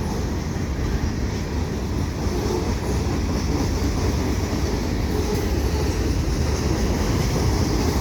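CN freight train rolling past on the rails: a loud, steady rumble of wheels on track.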